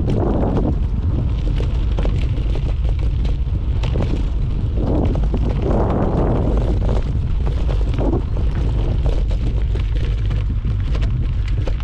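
Mountain bike descending a rough trail: wind noise on the camera microphone with a constant deep rumble, surging in gusts, and quick rattling clicks of the bike jolting over the ground.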